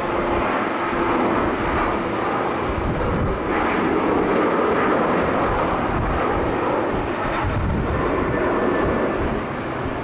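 Boeing 737-800's twin jet engines at takeoff thrust: a steady, loud roar through the takeoff roll. Strong wind buffets the microphone.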